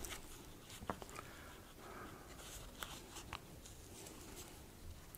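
Chinagraph (wax grease) pencil drawing faintly through a road-marking stencil, with a few light clicks.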